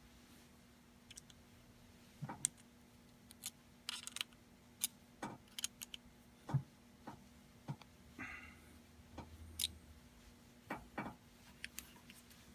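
Scattered faint clicks and taps of small tools and metal parts on an FX Impact air rifle's action as its screw and set screw are tightened down, with a short scratchy noise about eight seconds in.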